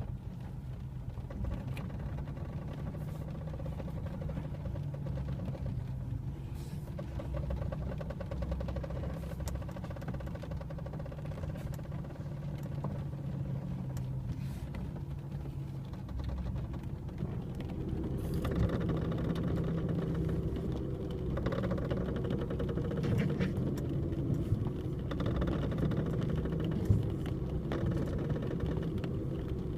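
Car with a steady low running rumble. From a little past halfway come repeated creaks from the KYB front strut mount bearings, which are already creaking three days after fitting.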